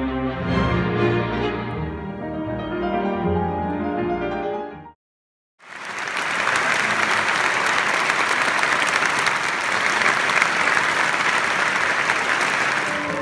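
Symphony orchestra and solo grand piano playing, cut off abruptly about five seconds in. After a brief silence, an audience applauds steadily.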